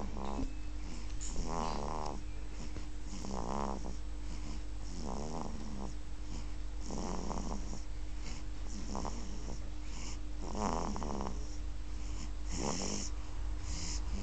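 Regular snoring, one snore about every two seconds, each followed by a hissing out-breath.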